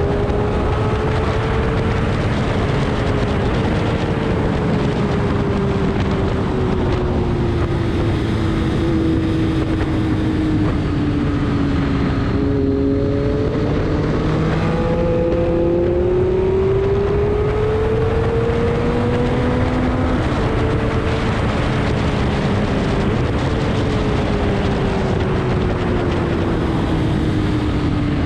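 A vehicle engine running continuously through a lap on a racetrack, its note slowly rising and falling as it speeds up and slows, lowest about twelve seconds in and then climbing again. A steady rush of wind and road noise runs under it.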